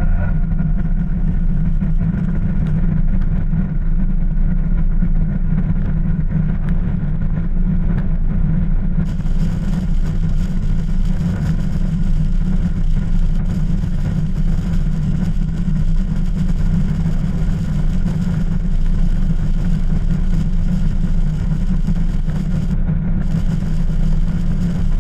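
A vehicle's engine droning steadily, with road noise, while the vehicle drives along. About nine seconds in, a hiss joins in the upper range.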